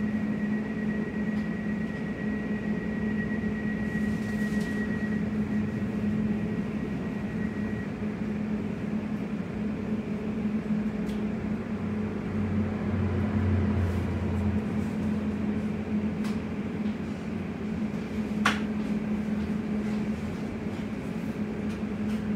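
Steady hum of a Class 345 electric train's air-conditioning and on-board equipment, heard inside the carriage while it stands at a platform. A faint high whine fades out about a third of the way in, a low rumble comes and goes midway, and one sharp click sounds near the end.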